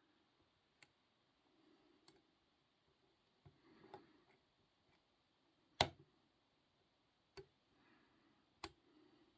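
Scattered faint clicks of a short-hook lock pick and tension wrench working the pins of a small bell padlock, about six in all, the sharpest a little under halfway through.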